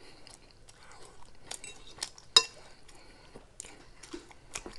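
Eating utensil clinking against a plate: a few sharp clicks and taps, the loudest with a short ring about two and a half seconds in.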